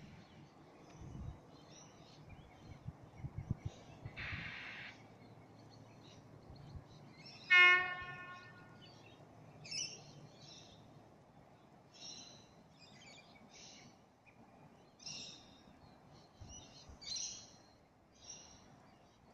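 Sydney Trains electric passenger train sounding one short horn blast, a single steady tone about half a second long, as it approaches the station. Birds chirp in short calls every second or two after it.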